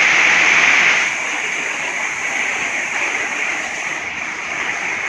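Heavy thunderstorm rain pouring down in a dense, steady hiss, a little louder in the first second.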